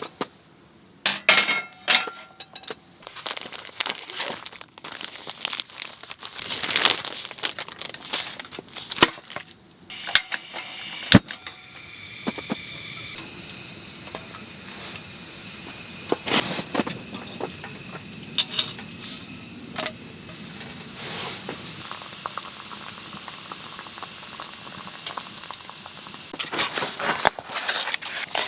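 Clinks and knocks of cookware and utensils being handled, with crinkling, then from about halfway a steady hiss under occasional clicks.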